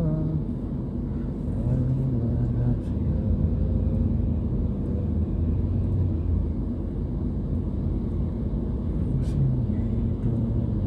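Steady low rumble of a car's engine and road noise heard inside the cabin while it crawls in heavy stop-and-go traffic.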